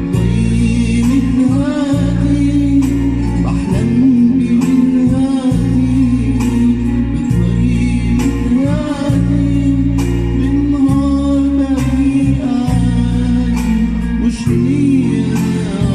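Egyptian Arabic pop song: a male voice sings a bending, ornamented melody over a backing track of sustained bass notes and steady percussion.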